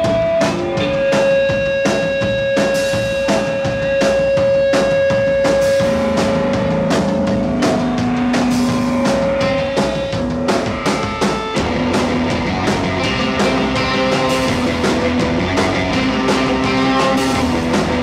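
A rock band playing live: a drum kit beating steadily under guitar. The guitar holds one long note for the first several seconds, then moves to lower, busier playing.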